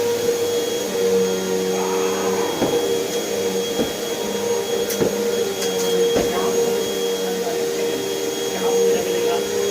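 Vacuum cleaner running steadily, its motor hum holding fixed tones while a lower tone comes and goes, with a few sharp clicks in the middle stretch as it sucks up material.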